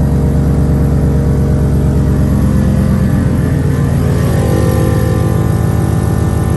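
Supercharged Ford F-150 running at idle together with its train-horn air compressor, a loud steady drone with a fast even pulse. The pitch of the upper tones shifts a little partway through.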